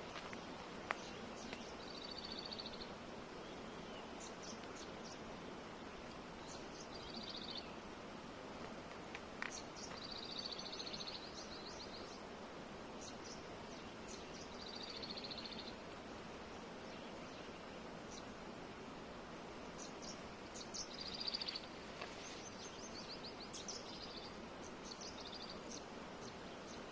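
Steady hiss of flowing water with a small bird giving short, high trilled calls every few seconds. A sharp click about a second in.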